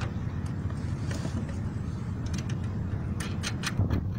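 Steady low rumble, with light clicks and knocks from the PVC-pipe mount of a home-made electric thruster being handled, a cluster of them about three seconds in.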